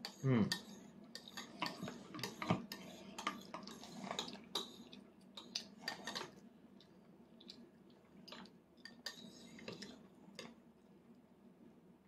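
Spoon clinking and scraping against a toddler's divided baby plate as she scoops food, a scatter of light taps that grows sparse in the second half.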